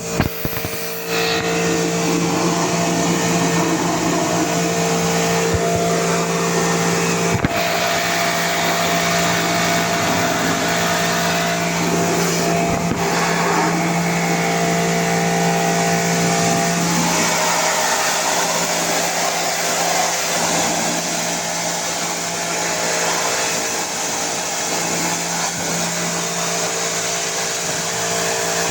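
Pressure washer running: a steady motor hum under the continuous hiss of its water spray. The hum fades briefly about two-thirds of the way in, then returns.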